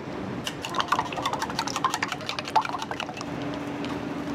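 A quick run of small clicks and clinks, like hard objects tapping or clattering together, lasting about three seconds over a steady low hum.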